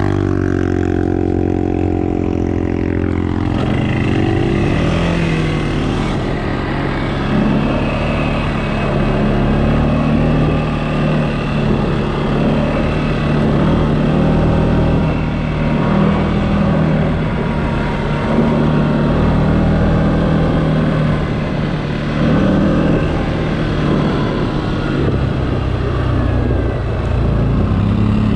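CFMOTO ATV engine running under way, its revs falling over the first few seconds and then holding fairly steady with small rises and dips.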